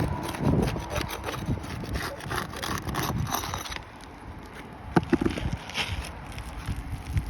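Asphalt shingles being pried up from their sealant strips: scraping and crackling as a flat tool is worked under the tabs and breaks the adhesive bond, easing off after about four seconds, with a few sharp clicks about five seconds in.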